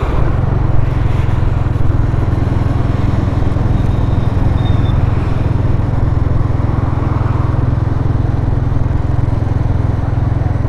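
Motorbike riding along a road: a steady, loud engine and road rumble, heaviest in the low end, with no sudden events.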